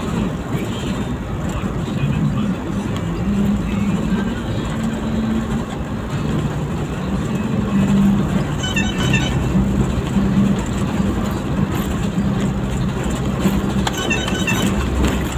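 Road and traffic noise heard from inside a moving vehicle, with car radio music playing underneath.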